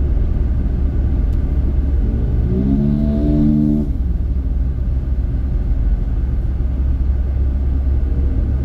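Steady low rumble of wind and road noise from a moving motorcycle. About two and a half seconds in, the engine's note rises as it accelerates, holds for about a second, then sinks back into the rumble.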